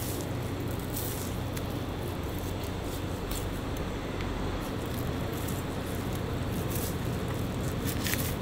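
A knife slicing through raw pork belly, with a few short wet cuts and scrapes against the meat. Under it runs a steady low hum, the loudest sound throughout.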